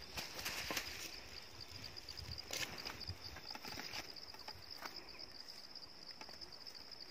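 Insects chirring steadily with a high, finely pulsing note, over scattered rustles and crunches of footsteps in grass and stony ground, the strongest near the start and about two and a half seconds in.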